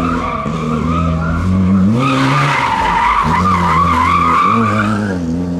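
Classic rally car's engine revving up and falling back through a corner, with its tyres squealing, the squeal loudest from about two seconds in until near the end.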